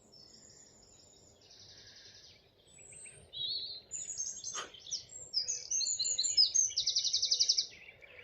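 Several songbirds singing over one another, a chaffinch and a chiffchaff among them. Faint at first, the song grows busier and louder from about three and a half seconds in, with quick trills and rapid runs of repeated notes.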